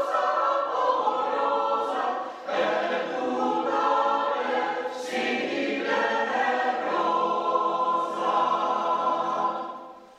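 A choir singing sustained chords, with short breaks between phrases; the last chord fades away near the end.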